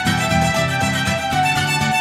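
Instrumental background music: a violin melody over a steady, rhythmic accompaniment of short repeated low notes.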